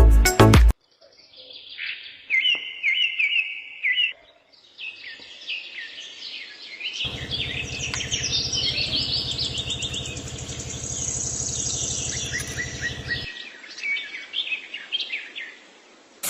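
Small songbirds chirping and twittering in quick repeated trills. A steady low hum starts abruptly midway, runs for about six seconds under the birds, and cuts off.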